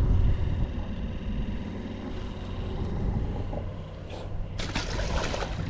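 Low rumbling handling noise on a body-worn camera's microphone as the angler moves along the bank holding a white bass, with a short burst of rustling about five seconds in.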